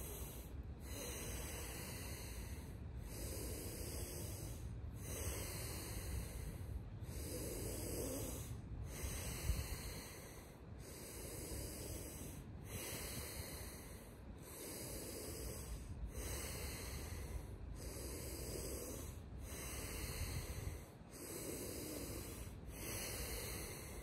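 People doing Wim Hof Method power breathing together: deep, forceful breaths in and out, about one every two seconds, in a round that leads up to a breath hold.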